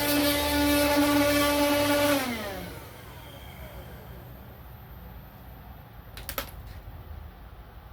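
Small car vacuum cleaner motor, powered from a PC ATX power supply, running with a steady whine, then spinning down with a falling pitch a little over two seconds in until it stops. A couple of short clicks follow a few seconds later.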